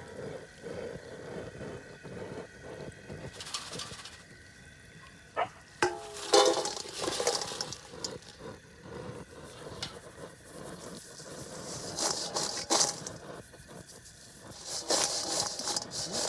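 Homemade French fries frying in hot oil at about 400 degrees: a steady sizzle, swelling several times into louder bursts of hiss.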